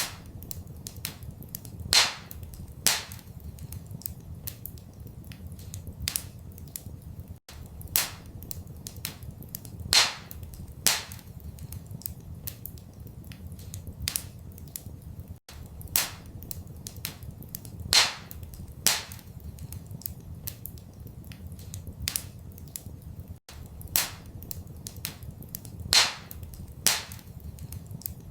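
Wood fire crackling in a fireplace: frequent small snaps with a few louder pops, over a steady low rumble. The pattern of loud pops repeats about every eight seconds.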